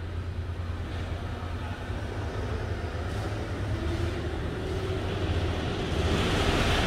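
Motorised pit lift platform with a roller deck lowering, its drive running with a steady low hum. A hissing noise swells and the sound grows louder near the end.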